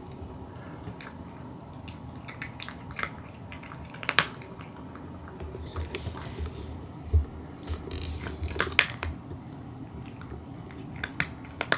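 Cat eating dry kibble from a ceramic bowl: irregular crunches and clicks of kibble against the bowl, a few sharper ones about four seconds in, around nine seconds and near the end.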